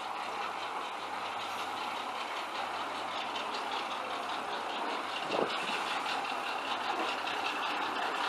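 Steady engine noise from a pleasure boat's motor approaching through the lock, slowly growing louder, with a brief knock about five seconds in.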